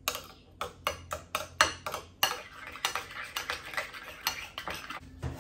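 Metal spoon clinking and scraping against a ceramic bowl in quick, irregular strokes while stirring a thick yogurt-and-mayonnaise dressing. The clinking stops about five seconds in.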